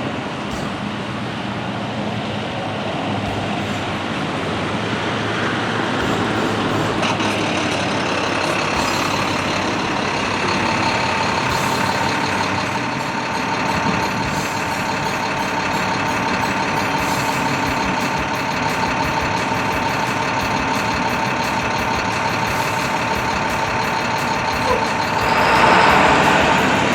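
Continuous din of road traffic, heavy trucks and engines, with a steady pitched tone coming in about ten seconds in and a louder swell near the end.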